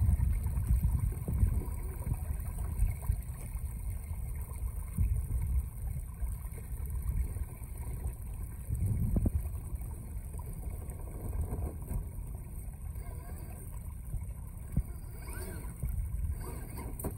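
Low, gusting rumble of wind on the microphone over flowing creek water, as a 1/10-scale RC rock crawler drives through the shallow water and over rocks.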